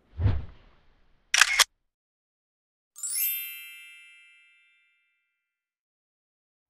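Title-card sound effects: two short whooshy bursts of noise, the second louder, then about three seconds in a bright sparkling chime that rings out and fades over about a second and a half.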